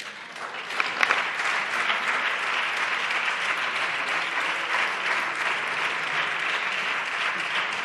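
Deputies applauding in the parliamentary chamber at the end of a speech: clapping starts right away, builds within the first second, then keeps up steadily.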